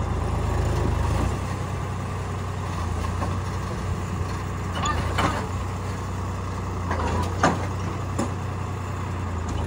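Sonalika 35 DI RX tractor's diesel engine running steadily as it powers the hydraulic tipper raising the trailer bed to dump mud. A few brief sharp knocks stand out about halfway through and again about three-quarters through.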